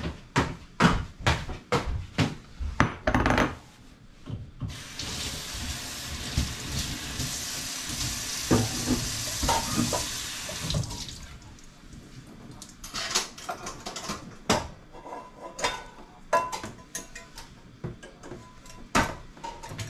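Kitchen tap running into a stainless steel sink for about six seconds while a wooden cutting board is rinsed. Before it comes a quick run of sharp knocks, the loudest sounds, and after it scattered kitchen clatter.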